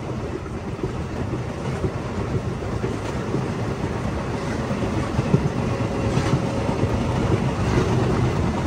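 Passenger train running at speed, its wheels rumbling and clacking on the rails, heard from an open coach door. The noise is steady, growing a little louder toward the end.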